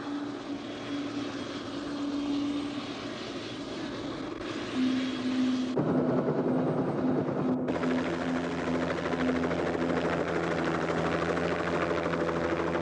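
Helicopter running: a steady engine and rotor drone with a held hum. It gets louder about six seconds in, heard from inside the cabin in flight.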